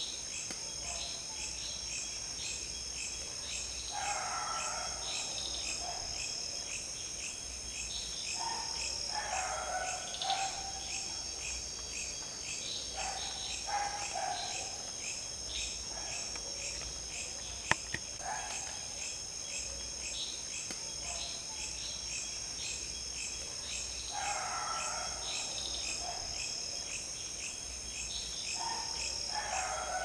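Forest ambience: a steady, high, pulsing chorus of insects, with birds calling every few seconds over it. A single sharp click comes a little past halfway.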